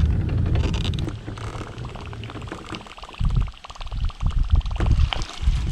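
Low rumble of wind and water noise on the microphone, with a quick run of fine, even ticks about two seconds in and scattered low thumps after.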